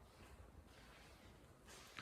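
Near silence: faint room tone in an empty room, with a soft rustle near the end.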